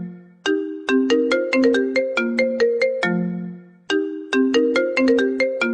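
iPhone ringtone playing a short melody of quick, bright, plucked-sounding notes. Each phrase dies away and then starts over, about every three and a half seconds.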